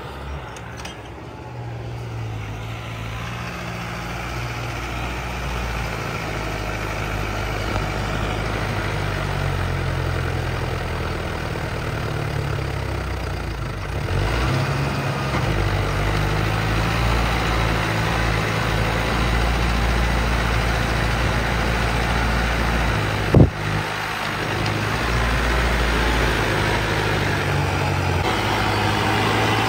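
Mahindra Arjun Novo 605's 57 hp turbo-diesel tractor engine, its diesel pump modified, running steadily under load while pulling a spring-tine cultivator through the soil. A single sharp knock comes about two-thirds of the way through.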